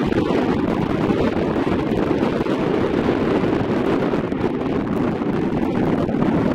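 Wind buffeting the camera's microphone: a loud, steady, low rumble that covers everything else.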